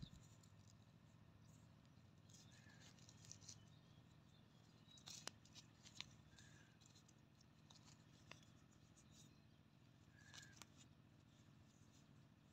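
Near silence, with a few faint scrapes and crackles of fingers digging and breaking up dry, crusty soil, spaced a couple of seconds apart.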